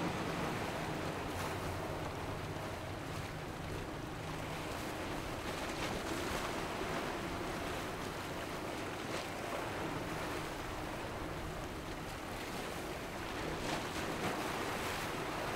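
Waves breaking and churning water, with boat engines running and wind buffeting the microphone.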